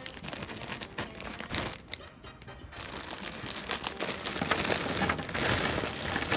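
A clear plastic bag crinkling as scissors cut it and hands pull it open, then a mass of small rubber figures pouring out and tumbling onto a pile, denser and louder near the end. Background music plays underneath.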